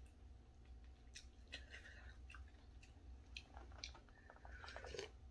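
Faint eating sounds: a wooden spoon tapping and scraping in a bowl of soup, then small sips and chewing, as a scatter of soft clicks that gather about three and a half seconds in.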